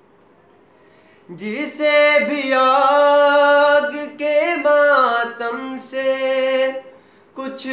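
Solo male voice singing a manqabat unaccompanied. After a pause of about a second and a half, it sings a long, held, ornamented phrase, breaks off briefly, and starts the next line near the end.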